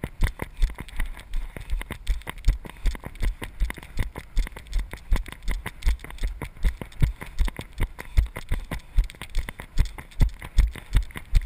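Running footsteps on a muddy grass trail, heard as a steady run of low thuds about three a second, picked up through a body-worn GoPro action camera that rattles with each stride.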